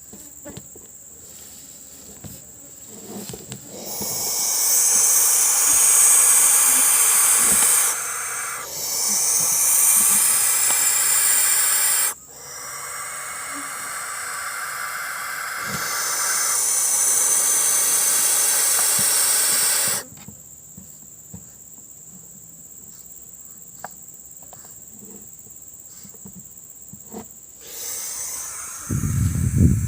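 Barn owl hissing: three long, loud, breathy hisses one after another, each several seconds long. Around them a steady high insect buzz continues, and a low rumble comes in near the end.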